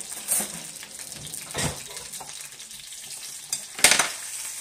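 Halved tomatoes sizzling steadily in oil in a frying pan, with a few sharp knocks of a metal utensil against the pan, the loudest near the end.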